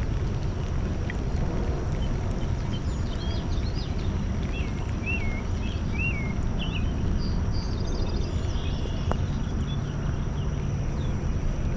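Steady low outdoor noise on the microphone, with a few birds chirping about halfway through.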